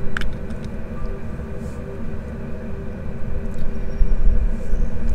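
Wind buffeting the microphone: a steady low rumble with a faint constant hum, growing louder about four seconds in. A few light clicks come from things being handled.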